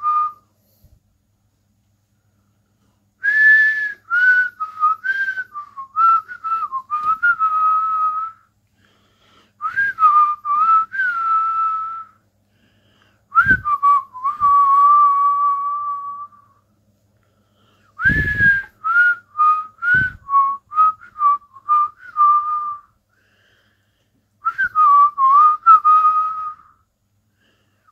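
A man whistling with pursed lips: five short phrases of quick notes with pauses between, each phrase starting on a higher note and dropping to a lower one. A few low thumps come in the middle of the whistling.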